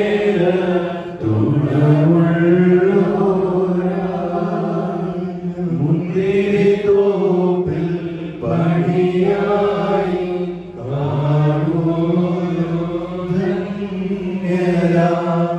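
Male liturgical chant sung in long, held phrases, with brief breaks for breath every few seconds.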